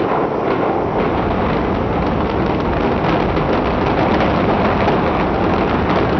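A brick high-rise collapsing in a controlled demolition implosion: a loud, sustained roar and rumble of falling masonry, with scattered sharp cracks through it.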